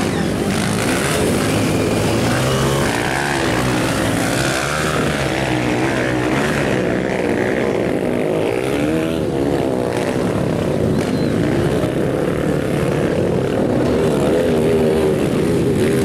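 Several motocross dirt-bike engines revving as the bikes race, their overlapping whines rising and falling in pitch with the throttle.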